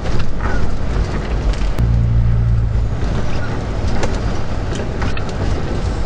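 Vehicle cabin noise picked up by a dash camera on a wet highway in heavy rain: steady road and tyre noise with a low engine drone that swells about two seconds in, and a few light clicks and taps.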